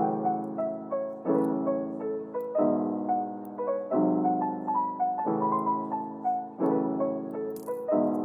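Lo-fi background music led by piano, with a new chord about every 1.3 seconds and a simple melody over it.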